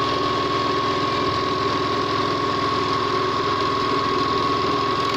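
Okurma 620-F three-thread overlock machine running steadily at speed: a fast, even machine clatter with a steady high whine.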